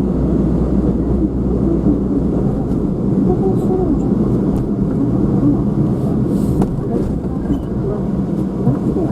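Steady road and engine noise of a moving car, heard with a constant low rumble, and muffled voices underneath.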